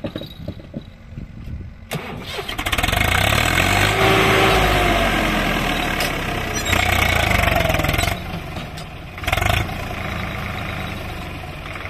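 Swaraj 744 XT tractor's three-cylinder diesel engine revving up hard under load, pulling a loaded soil trailer. It comes up loud about two seconds in, rises and falls in pitch, and eases back after about eight seconds.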